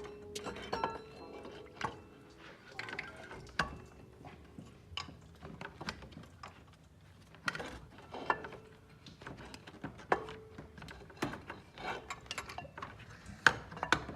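Irregular clinks and knocks of metal tools and parts being handled during a water pump replacement, a few of them ringing briefly.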